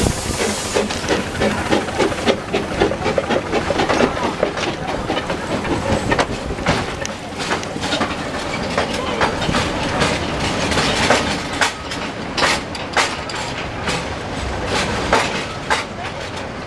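Miniature steam locomotive pulling away, with a hiss of steam at first and its exhaust chuffing in a quick regular beat. Then its passenger carriages roll past, their wheels clattering over the rail joints.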